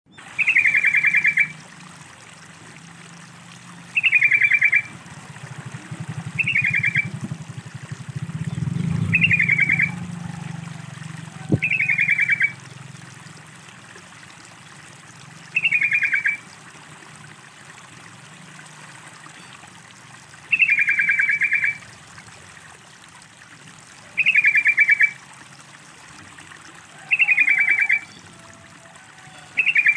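Yellow-vented bulbul (trucukan) calling: a short, rapid chattering phrase repeated about ten times, one every three to four seconds, over a steady trickle of running water.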